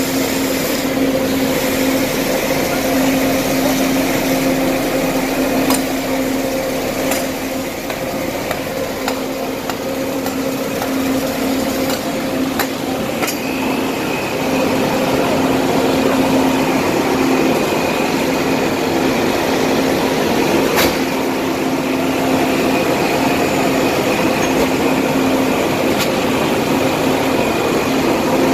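Scooter engines running steadily, with about seven scattered sharp knocks of hammer blows on the shop window.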